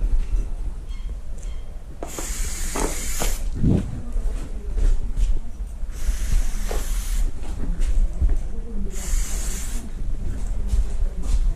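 Aerosol spray paint can spraying in three bursts of hiss, each about one to one and a half seconds long, over a steady low rumble.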